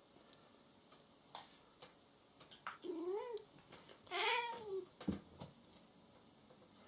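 Cat meowing twice, about a second apart, each call rising and falling in pitch, the second a little louder. A light thump follows just after.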